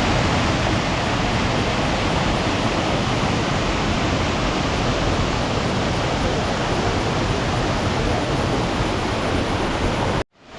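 Waterfall rushing, a loud, steady roar of falling water that cuts off suddenly near the end.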